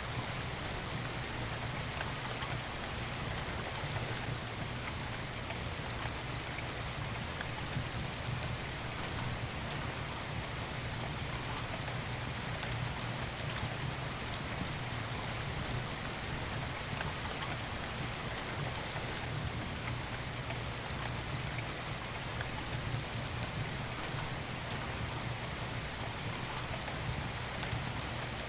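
Steady rain falling, with occasional faint crackles from a wood fire in a fireplace.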